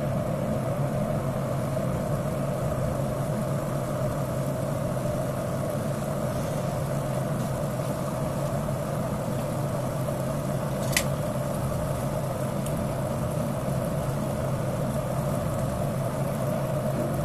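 Water at a rolling boil in an electric multi-cooker kettle, a steady bubbling rumble with a low hum under it. A single short tick about eleven seconds in.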